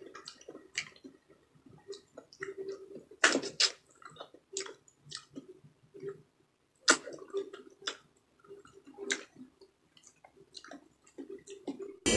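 Mouth sounds of eating ripe mango flesh off the skin: wet smacks and chewing at irregular intervals, with louder smacks about three, seven and nine seconds in.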